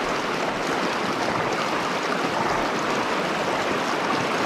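Shallow, rocky mountain river rushing over stones in a riffle: a steady, even rush of running water.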